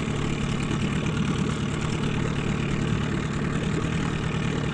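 Outboard boat motor running steadily at trolling speed, a low even hum.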